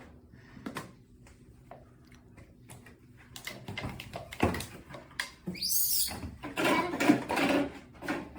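A monkey giving a high squeal that sweeps up and down about halfway through, followed by further pitched calls, with a few soft knocks and handling sounds around it.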